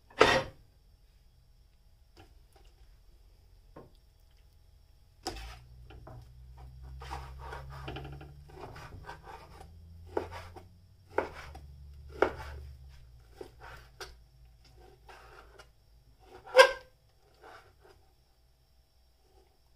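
Chef's knife cutting raw pork shoulder into cubes, the blade knocking on the cutting board about once a second, with slicing scrapes between the knocks and one louder knock near the end.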